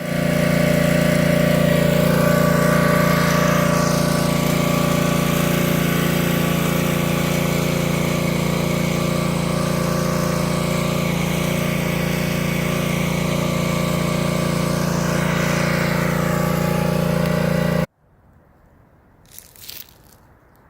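Engine-driven pressure washer running steadily, the engine's drone under the hiss of the spray. It cuts off abruptly near the end, leaving a faint background with a short, high sound.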